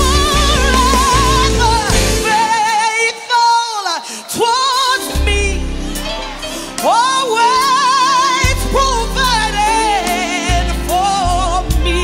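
Gospel music: a solo voice sings melismatic runs with heavy vibrato and sliding pitch over the accompaniment. The deep bass drops out for a few seconds in the middle, then comes back.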